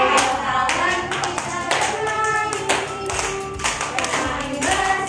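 A song with singing and rhythmic hand clapping, about two claps a second, as children and adults clap along.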